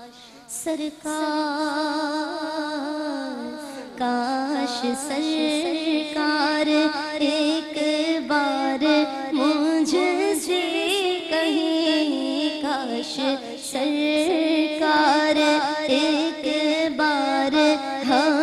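A woman singing an Urdu naat (a devotional song in praise of the Prophet), holding long ornamented notes with a wavering pitch, in phrases with short breaks for breath.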